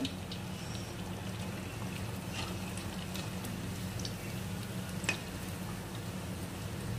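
Rice-flour malpua batter deep-frying in hot oil in a kadhai: a steady crackling sizzle over a low hum, with a single sharp click about five seconds in.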